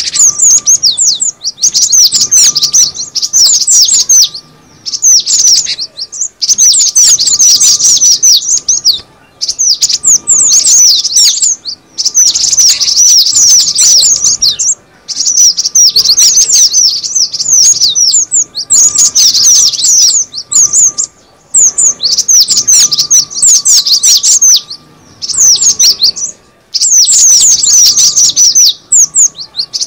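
Cinereous tit (gelatik batu) calls: dense bursts of rapid, high chirps, each phrase a second or two long, broken by short pauses about a dozen times.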